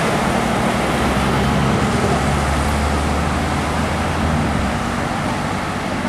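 Road traffic: a heavy vehicle's engine runs with a low, steady drone over tyre and road noise. The drone eases about four and a half seconds in.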